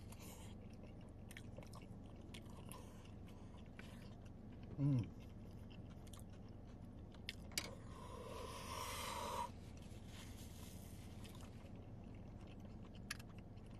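Close-up mouth sounds of a man chewing a bite of wet burrito, soft wet smacks and small clicks over a steady low hum. About five seconds in comes a short hum from the throat falling in pitch, and about eight seconds in a breath blown out for a second and a half, cooling a mouthful that is too hot.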